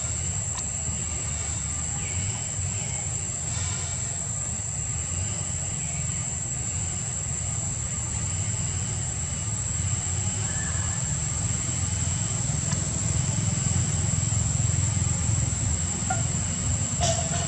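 Steady outdoor background noise: a low rumble with a constant high-pitched whine above it, growing a little louder about halfway through.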